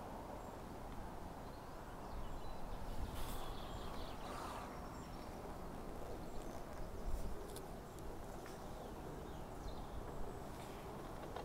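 Outdoor lakeside ambience: an uneven low rumble of wind on the microphone, with a few faint rustles and small clicks.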